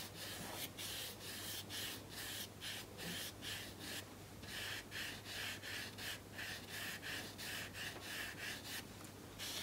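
Large flat watercolour brush swept back and forth across wet watercolour paper, laying a wash: a soft, scratchy swish about two or three strokes a second.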